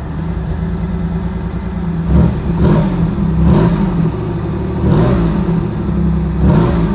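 1991 Chevrolet Camaro's engine idling, then revved in several short throttle blips from about two seconds in.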